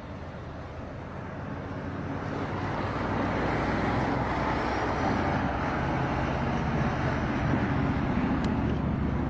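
A vehicle's engine rumbling steadily, growing louder over a second or two about two seconds in and then holding steady.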